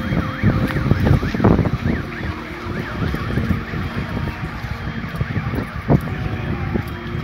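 An electronic siren sweeping quickly up and down in pitch, several times a second, under heavy wind rumble on the microphone.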